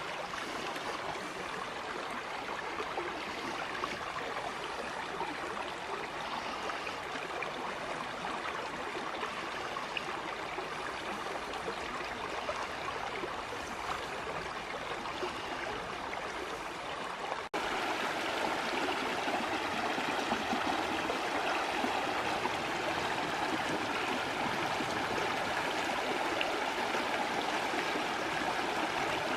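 Creek water running steadily over rocks in a shallow woodland stream. About two-thirds of the way through the sound cuts abruptly and comes back louder and brighter, the flow heard closer or at a livelier stretch.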